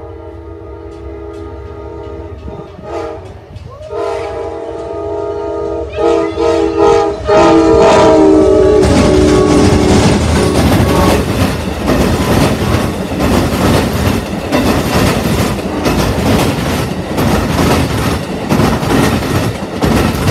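Amtrak GE Genesis P42DC diesel locomotives sound their air horn in several long blasts as they approach a grade crossing. The horn's pitch drops about 8 seconds in as the locomotives pass. The locomotives and passenger cars then rumble and clatter by at speed over the rail joints.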